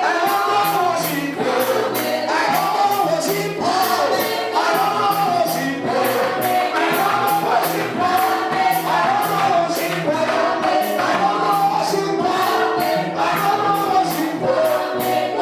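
Gospel choir singing with a band, over a steady percussion beat of about two to three strikes a second.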